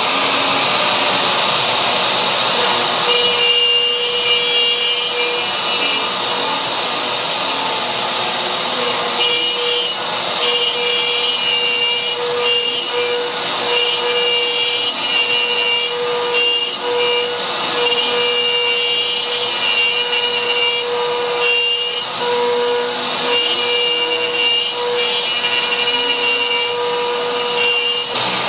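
CNC router spindle running at speed while a 1/4-inch end mill clears out a pocket in wood, with the rush of dust collection through the brush dust shoe. A steady high whine comes and goes in stretches as the bit moves through the cut.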